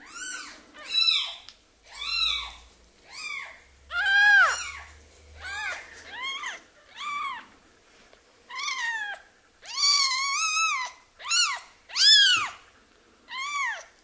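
Newborn kitten crying: about a dozen high-pitched mews, roughly one a second, each rising and then falling in pitch. A few, around four seconds in and again near ten and twelve seconds, are longer and louder.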